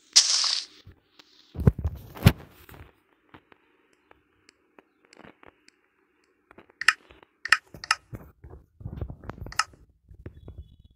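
Hand work on wooden pieces: a short hiss at the start, two heavy knocks about two seconds in, then scattered sharp clicks and taps, with a faint steady hum underneath.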